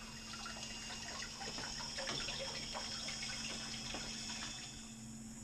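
Electric sump pump running, emptying a full sump pit: a steady motor hum with water gurgling and splashing that fades near the end.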